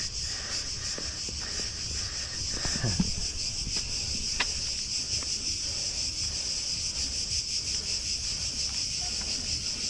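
Steady high-pitched buzzing of a cicada chorus, with a fast pulsing grain. A single sharp click stands out about four seconds in.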